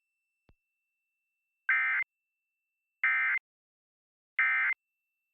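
Emergency Alert System end-of-message data signal: three short, identical bursts of digital data tone, about 1.3 seconds apart, marking the end of the alert.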